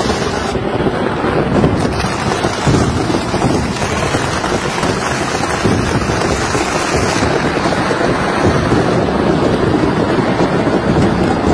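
A burning stock of fireworks going off all at once: a dense, unbroken crackle of many bangs and bursts, with a few louder bangs in the first few seconds.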